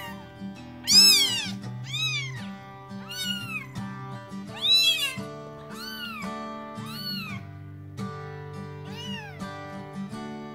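A 16-day-old kitten meowing repeatedly in high-pitched, arching cries, about one a second, the loudest about a second in and near the middle, while being fed milk from a syringe. Background music plays steadily underneath.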